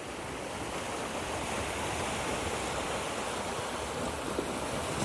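Surf washing in on the beach, a steady rush of water that slowly swells.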